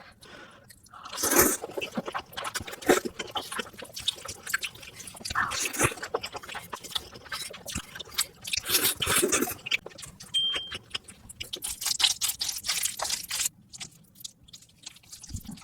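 Noodles being slurped and chewed close to the microphone: four long wet slurps with smacking, clicking chewing sounds between them.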